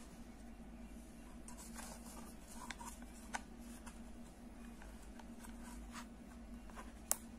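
Faint clicks and rustles of a crochet hook and yarn being worked through the holes in a wooden bag side, with a sharper click a little after three seconds in and the loudest near the end, over a steady low hum.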